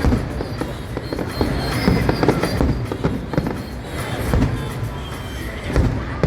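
Fireworks display: a rapid, irregular series of bangs and crackles from exploding shells over a continuous low rumble.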